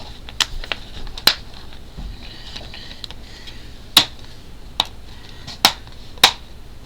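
Sharp plastic clicks and taps, about six in all, spread unevenly, as a laptop battery is pushed into place in the open plastic chassis of an MSI GL65 Leopard.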